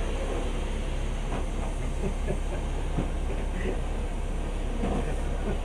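Steady low hum of a stationary passenger train carriage, with a few faint scattered knocks.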